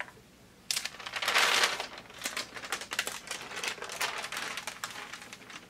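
Silicone release paper crinkling and crackling as it is lifted and peeled off a freshly pressed fused fabric appliqué. It starts about a second in with the loudest rustle, then continues as a run of smaller crackles.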